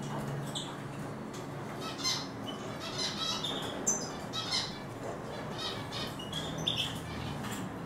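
Eurasian siskins chirping and twittering: short, high calls in quick clusters every second or so, over a faint low hum.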